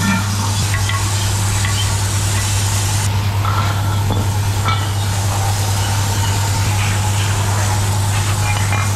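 A machine running steadily: a constant low hum under a continuous hiss.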